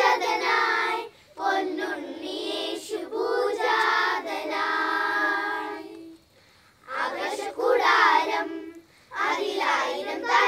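Children's choir singing a Christmas carol without accompaniment, in sung phrases broken by short pauses; the longest pause is about six seconds in.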